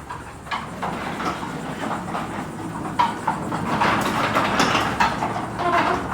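Sectional garage door closing, its rollers rattling and clicking along the freshly lubricated tracks in a continuous run that builds in level.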